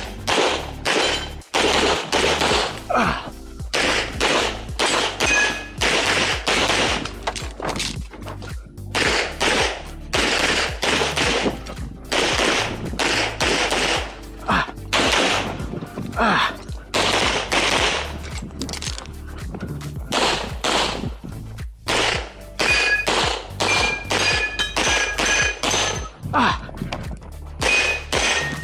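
Rapid strings of .40-calibre pistol shots from a Limcat competition pistol, fired in quick pairs and bursts with short pauses between strings, over background music.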